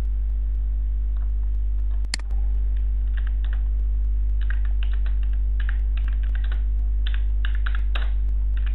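Typing on a computer keyboard, keystrokes coming in quick runs from about three seconds in, over a loud steady mains hum. A single sharp click sounds about two seconds in.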